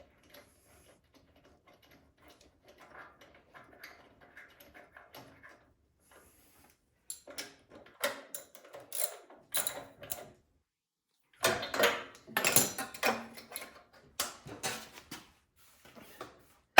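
Irregular clicks, knocks and clatter from hands working on the snowblower. They are sparse at first and come in quick clusters from about halfway, with a short complete silence in the middle.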